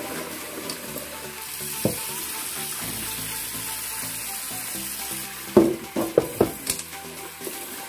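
Rice being rinsed in a rice cooker's inner pot at the sink: steady running-water hiss, with a sharp knock about two seconds in and a quick cluster of four or five louder knocks of the pot near the end.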